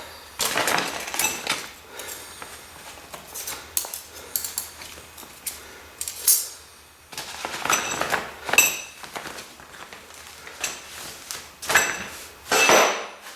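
Steel parts being handled on a workbench: irregular knocks and clinks of metal on metal, a few ringing briefly.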